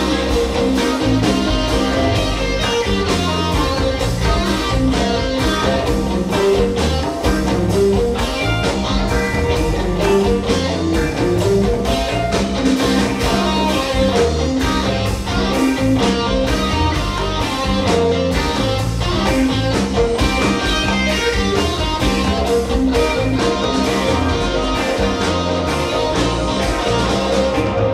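A live band playing, with electric guitar to the fore over the band.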